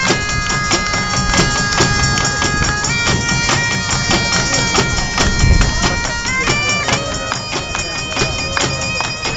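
Bagpipes playing a melody of long held notes over their steady drones, with a group of large tribal-style bass drums and snare drums beating a driving rhythm underneath.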